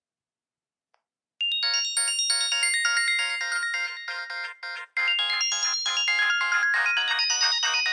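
A Nokia polyphonic ringtone played from an MXMF file on a Sony Ericsson G700's small loudspeaker. It starts about a second and a half in as a quick, rhythmic tune with no bass, and breaks off briefly just before the five-second mark before going on.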